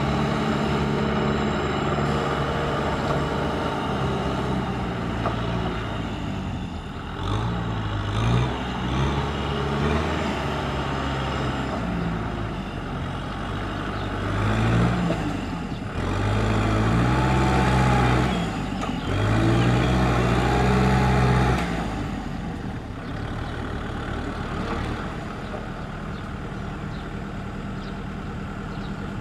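Kubota M6040SU tractor's four-cylinder diesel engine working under load as its front blade pushes mud through a flooded paddy, the engine note rising and falling as it revs up and eases back. It is loudest and highest about two-thirds of the way through, then settles lower near the end.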